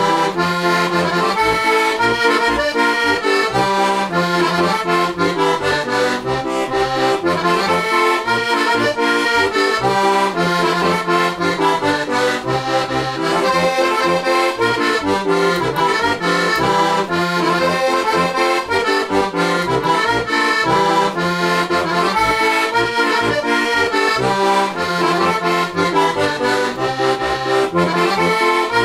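Heligonka, a Slovak diatonic button accordion tuned in C–F, with four reeds per treble note (one a low octave) and hand-made brass reeds, playing a Slovak folk tune. The melody and chords run over a regular pulse of bass notes.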